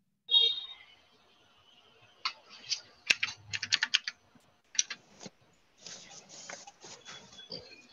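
Computer keyboard typing: irregular runs of quick keystrokes. It follows a single sharp click with a brief ring near the start.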